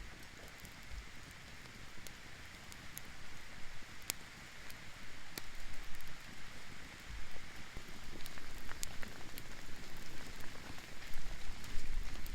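Rain falling steadily, with scattered sharp ticks. It grows louder from about four seconds in.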